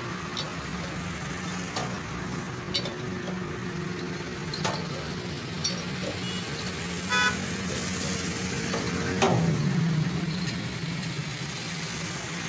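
A spanner clinking on the metal screw of a truck's screw jack as it is turned, a sharp click every second or two, over a steady low engine hum. A short vehicle horn toots about seven seconds in, and the hum swells briefly just after.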